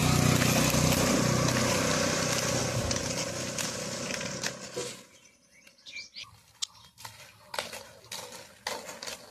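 A motorcycle engine running as the bike passes close by, loud at first and fading away over about five seconds. After it has gone, the rest is quieter, with scattered clicks and taps and a brief bird chirp.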